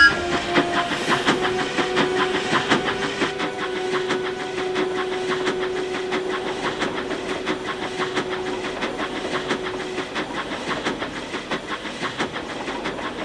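Sound effect of a steam train running, its wheels clattering over rail joints in a fast, even rhythm. A steady tone sounds over it until about ten seconds in, and the train sound fades away at the end.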